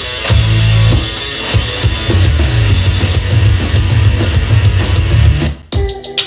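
Rock music with heavy drums and a strong bass line. About five and a half seconds in it cuts out abruptly, and a different track with choppy, stop-start beats begins.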